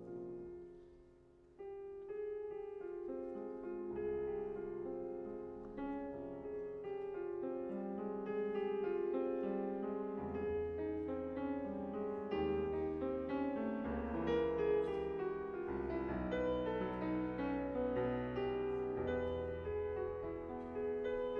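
Piano playing slow classical music. The sound dips briefly about a second in, then the playing continues with a full bass line.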